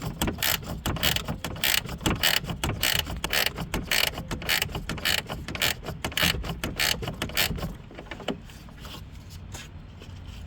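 Ratchet wrench clicking in quick, repeated strokes as it backs off a 10 mm nut, stopping about eight seconds in.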